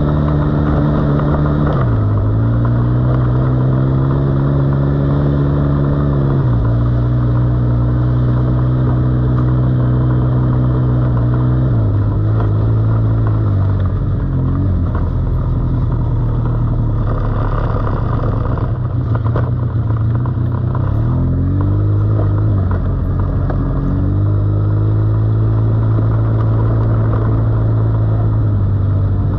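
Quad bike (ATV) engine running under way. Its note drops and climbs back several times as the throttle is eased and opened again.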